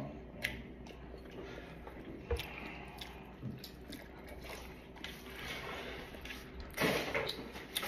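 Close-up chewing and mouth sounds of a person eating macaroni and cheese, with a few short clicks and a louder stretch near the end.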